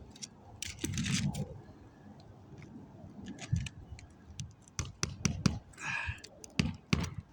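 Scraping and a run of sharp taps as old asphalt shingles are handled and nailed back down, the taps bunched about five seconds in.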